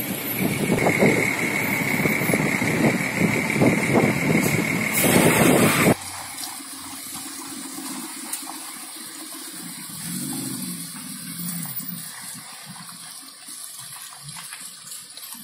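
Street traffic in a jam: car engines running and tyres rolling through wet slush, with a steady high whine over the first part. About six seconds in the sound drops abruptly to quieter traffic as cars creep through slushy puddles.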